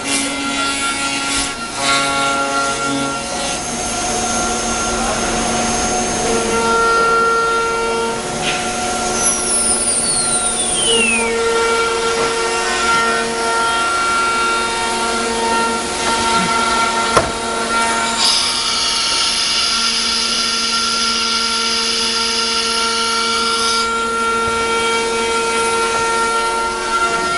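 HSD spindle of a CNC router running at high speed while its bit routes a curved wooden door-frame part: a steady high-pitched whine over the rasp of cutting wood. About a third of the way in a whine glides down in pitch, a brighter cutting hiss comes in for several seconds about two-thirds through, and a rising whine starts right at the end.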